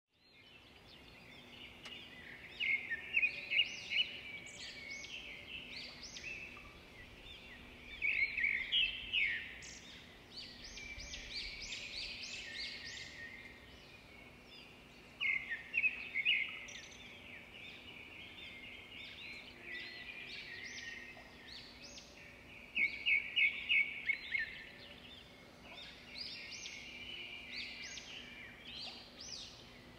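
Birds singing: bursts of quick, high chirping notes every several seconds, with softer twittering in between and a faint steady hum beneath.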